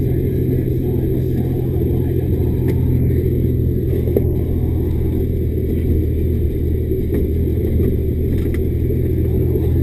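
Loaded timber lorry's diesel engine running steadily, heard from inside the cab, with a few light knocks and rattles, the clearest about four seconds in.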